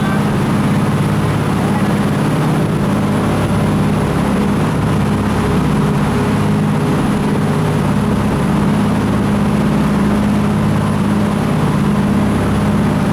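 Jet boat engine running steadily under way, a constant drone that holds the same pitch throughout.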